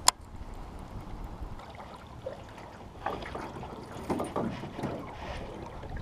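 Scattered knocks and rustles on an aluminum jon boat's hull, starting about halfway through, as a rod and feet move about the deck. A single sharp click right at the start.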